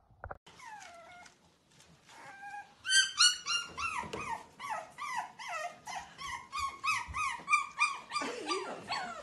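Puppy crying: faint whines at first, then about three seconds in a fast, loud run of short high yelping whines, about three or four a second, each one dropping in pitch.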